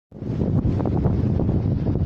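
Strong wind buffeting the microphone: a steady low rumble with small irregular gusts.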